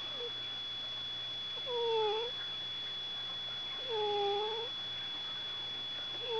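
Domestic cat giving low, drawn-out warning yowls, three times, each dipping and then rising slightly in pitch. It is an angry cat that has just been woken from sleep.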